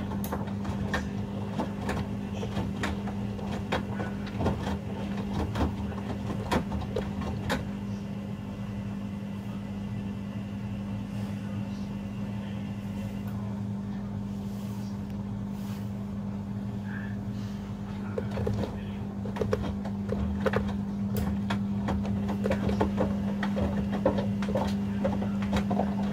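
Hoover Link and Samsung washing machines running a rapid 30-minute wash: a steady motor hum with scattered clicks and knocks, which come more often in the last few seconds.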